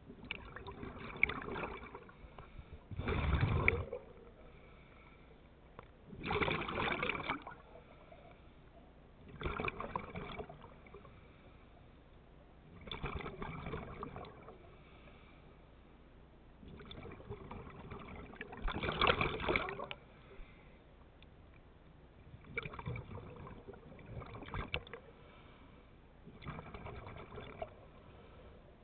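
Scuba regulator breathing underwater: exhaled bubbles gurgling in bursts of about a second, repeating every three to four seconds.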